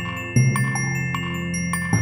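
Background music: bell-like mallet notes ringing over a low sustained bass note that changes with a fresh attack twice, about every second and a half.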